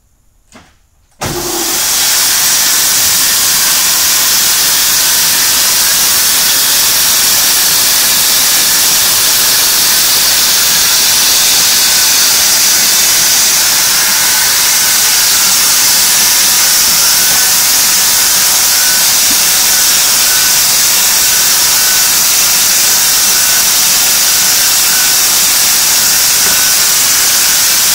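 Leather splitting (skiving) machine switched on about a second in, then running with a loud, steady, mostly high-pitched rushing noise as hides are fed through to be thinned.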